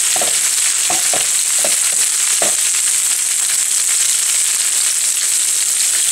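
Salted red and green capsicum strips and onion sizzling in hot oil in a frying pan. A wooden spatula scrapes through them about five times in the first two and a half seconds, then the sizzling goes on steadily.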